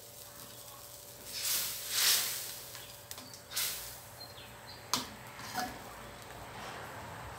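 Metal spatula stirring and scraping through curry in a stainless steel wok: two hissy scrapes about a second in, then lighter strokes and a sharp metal clink of spatula against the pan about five seconds in.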